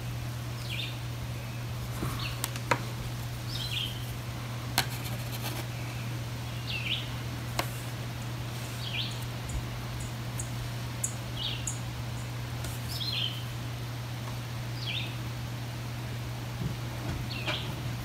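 A bird calling outside in short, repeated chirps about every two seconds, over a steady low hum, with a few sharp clicks.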